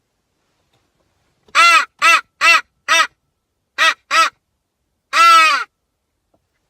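Hammerin mouth crow call blown in a sequence of crow caws: four short caws, a pause, two more short caws, then one longer, drawn-out caw near the end.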